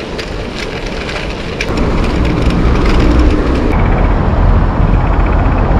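Wind buffeting the microphone over road noise from a bicycle being ridden, a steady low rumble that grows louder about two seconds in, with a few light clicks in the first two seconds.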